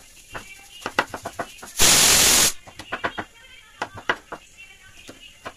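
Kitchen knife chopping garlic cloves on a wooden chopping board: a run of sharp, uneven taps of the blade striking the wood. About two seconds in, a loud burst of hiss lasts under a second.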